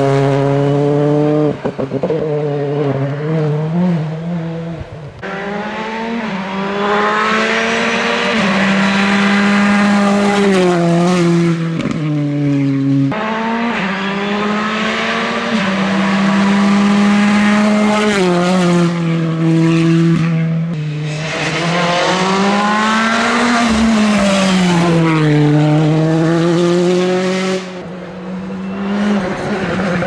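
Rally cars driven hard on a tarmac stage, their turbocharged four-cylinder engines revving up and falling back again and again through gear changes and corners. The note breaks off and jumps a few times, as one pass gives way to the next.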